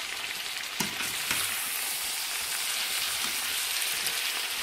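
Chicken, fried elephant foot yam, garlic and green chillies sizzling in a frying pan as they are stirred with a spatula, with a couple of light knocks of the spatula against the pan about a second in.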